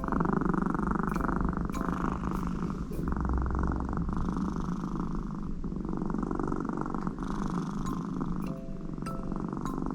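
American Shorthair cat purring very loudly, a deep rumble that sounds like snoring, swelling and easing with each breath.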